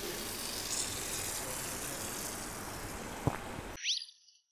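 Steady rushing background noise with a single knock a little after three seconds. It cuts off abruptly near the end, with a short rising whoosh as it drops to silence.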